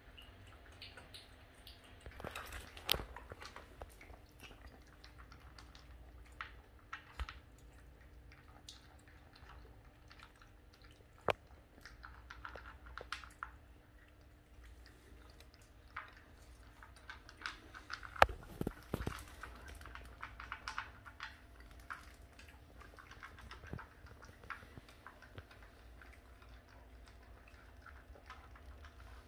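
French bulldog puppy eating dry kibble from a bowl: scattered crunches and clicks of chewing, with a few louder knocks about two-thirds of the way through.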